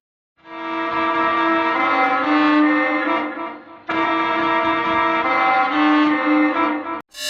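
A musical bus horn tune, digitally altered into a violin-like tone, plays the same short melody twice in a row. Each phrase lasts about three and a half seconds, and the second one cuts off suddenly.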